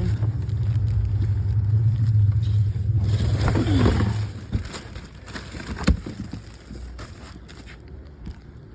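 A steady low engine hum, like a vehicle running close by, that stops abruptly about four seconds in, followed by quieter rustling and one sharp click.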